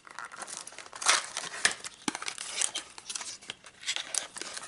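A small cardboard box and the packaging inside it being opened by hand: irregular rustling and crinkling with scattered light clicks as the flaps are folded back, loudest about a second in.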